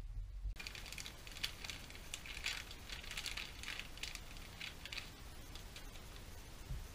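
Hands rummaging among tools and parts on a workbench: a run of quick, irregular rustles and light clicks, thickest from about one to five and a half seconds in.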